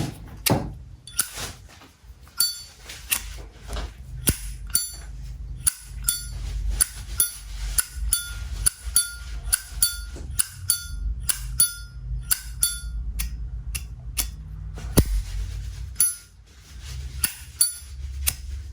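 Vintage Zippo lighter's hinged metal lid flipped open and snapped shut over and over, a run of sharp ringing metallic clicks about twice a second.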